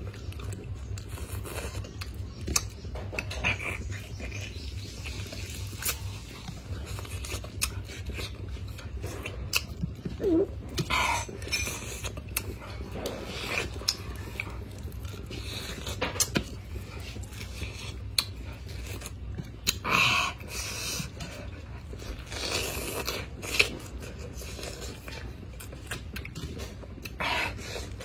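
A person chewing and biting into chunks of fresh pineapple, with wet mouth clicks and a few louder bursts of chewing noise, over a steady low hum.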